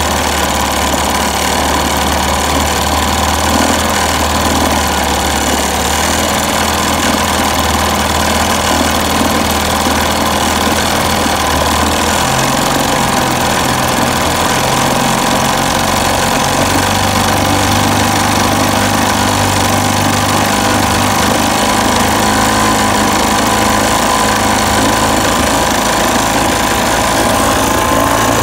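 Evinrude Mate 2 HP outboard motor running in a test bucket of water. It settles at a low idle, then speeds up in two steps, about twelve and about seventeen seconds in, as the throttle is opened.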